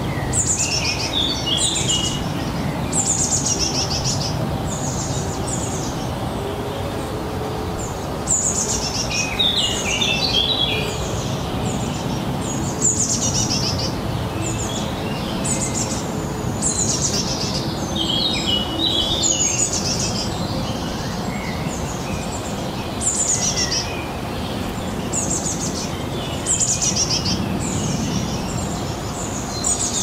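Wild songbirds singing: short, high phrases that fall in pitch, repeated about once a second, with clusters of lower chirps at times. Steady low background noise runs underneath.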